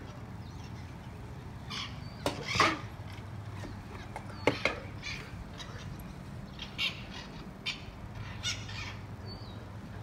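A flock of feral parrots squawking, with harsh calls at irregular intervals. The loudest come about two and a half and four and a half seconds in, with weaker ones later, over a steady low hum.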